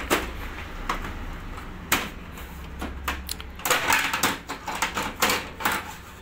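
Plastic cover panel of a Canon Advance 4245 copier being handled and fitted into place over the laser unit: single light knocks about once a second, then a busier run of plastic clicks and rattles in the second half.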